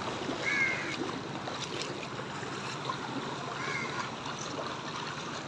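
Feet wading through shallow floodwater on a street, a steady sloshing and splashing. Two short high chirps sound in the background.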